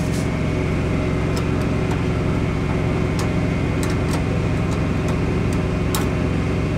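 Portable generator running steadily, with a few light metal clicks of tongs against a grill grate.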